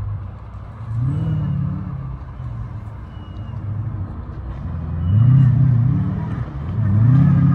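Comp safari off-road car's engine revving in repeated bursts: the pitch climbs and falls back about a second in, twice around five to six seconds in, and again near the end, each surge of throttle louder than the last.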